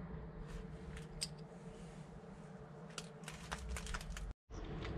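Crown cap of a beer bottle being levered off against a metal bottle opener screwed under a van's wing mirror housing: a few faint clicks and scrapes, bunched about three to four seconds in.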